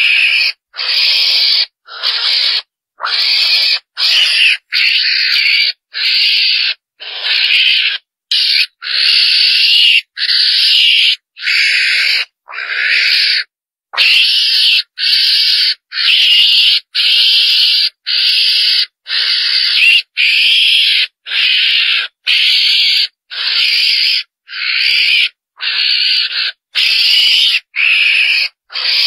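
Chồn đèn (mongoose) calls played as a hunting lure: short, rasping, high-pitched calls repeated about once a second, each starting and stopping abruptly, as in a looped recording.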